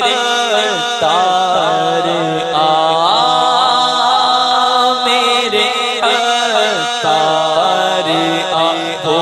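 A man singing an Urdu naat (devotional poem) into a microphone in a long, melismatic chanting style, over a steady low drone.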